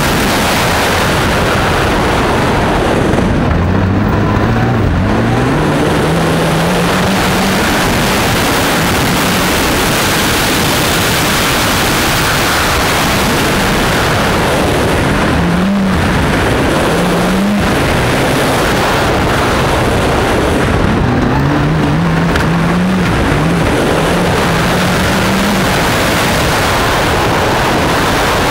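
Mitsubishi Lancer Evo X N4 rally car's turbocharged four-cylinder engine accelerating hard on gravel, its revs rising and dropping back through upshifts in three bursts. Throughout there is a constant loud rush of wind and gravel noise.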